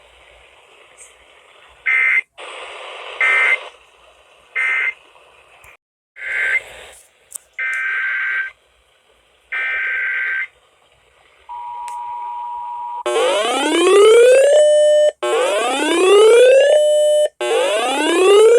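Emergency Alert System transmission tones. Three short screechy digital data bursts mark the end of one alert, followed by three longer data bursts that open the next alert's header. After that comes a brief steady two-tone attention signal, then a loud rising whoop alert tone that repeats about every two seconds.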